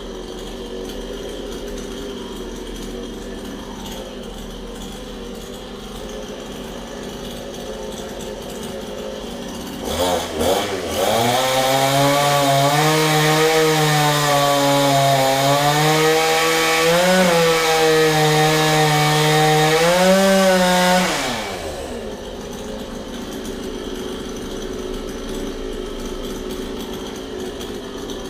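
Chainsaw revved twice about ten seconds in, then held at high revs for about ten seconds, its pitch wavering as it cuts into wood, before dropping away. A lower steady mechanical hum runs under it before and after.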